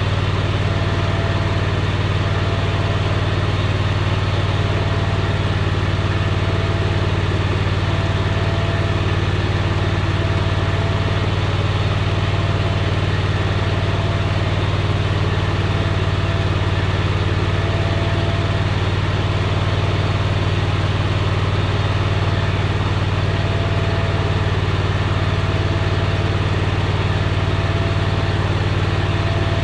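Hustler zero-turn mower's 27 hp Kawasaki engine idling steadily while it warms up.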